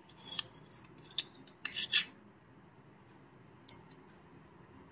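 A spoon scraping and clinking while butter is scooped and put into a nonstick pan of oil: a few short, sharp scrapes, the loudest pair about two seconds in and one more near the end.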